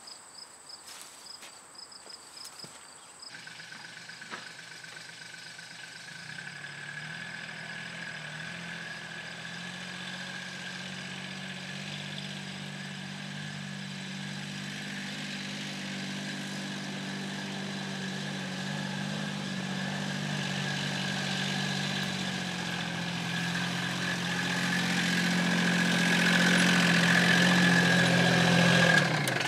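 Crickets chirring for the first few seconds, then a John Deere Gator utility vehicle's engine running steadily, growing gradually louder toward the end.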